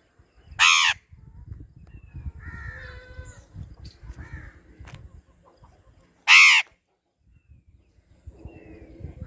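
A parrot gives two loud, harsh squawks about six seconds apart, with softer chattering calls between them.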